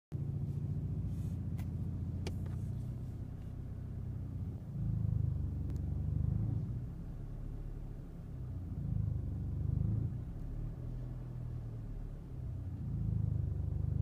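BMW 3 Series engine heard from the cabin with a low grumbling rumble that swells and fades several times: the strange noise it makes when pulling away from a standstill in first gear, coinciding with clutch engagement, though the owner doesn't believe it is the clutch. It began after the timing chain skipped a few teeth and was repaired.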